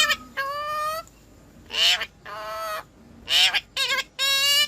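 Indian ringneck parrot calling: a series of about six loud, nasal, honking calls and harsher screeches, each under a second long.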